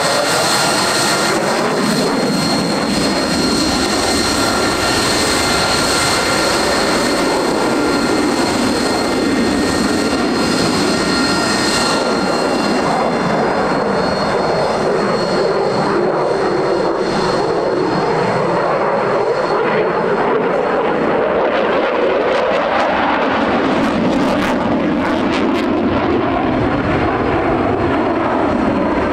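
Rolls-Royce Pegasus turbofan of an EAV-8B Matador II (AV-8B Harrier II Plus) jet running loud and steady. A high whine fades about twelve seconds in, and under it a low rumble sweeps slowly up and down in pitch.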